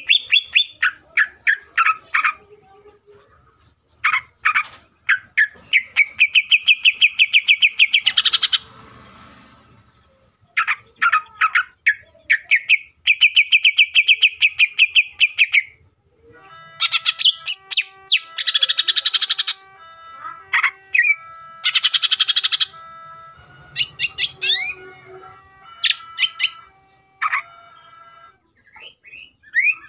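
Greater green leafbird singing: loud, fast rattling trills and chattering phrases in bursts with short pauses, and a run of held whistled notes mixed with harsh rasps in the second half.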